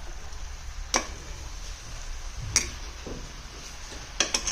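A metal utensil clinking against a cooking pan of pork and mustard greens: a few sharp clicks, one about a second in, another midway and a quick cluster near the end, over a low steady hiss.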